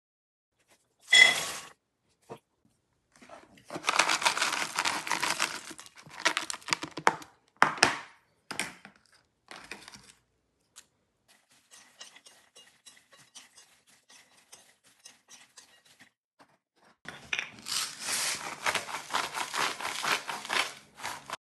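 Kitchen handling sounds: a sharp metal clink of a spoon against the frying pan about a second in, then bursts of rattling and rustling as the fried peanuts are moved, and a salt grinder being twisted over the bowl of peanuts for the last few seconds.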